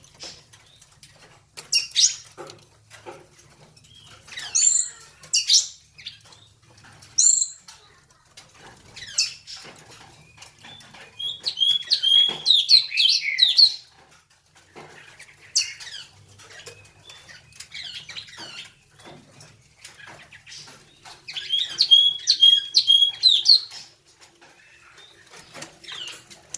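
Captive songbirds calling, with short sharp high calls every couple of seconds and two longer phrases of quick repeated song notes, one near the middle and one near the end.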